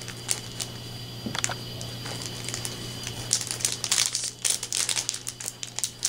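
Crinkling of a small clear plastic packet being handled and worked open between the fingers, sparse at first and busier from about halfway through, over a low steady hum.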